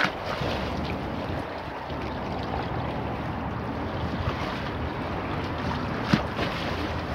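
Choppy river waves washing and splashing against granite embankment steps, with wind on the microphone. There is a sharp splash right at the start and another, the loudest, about six seconds in.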